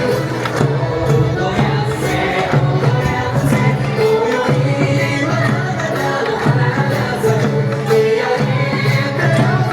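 Bon odori ondo music: a singing voice over a steady drum beat.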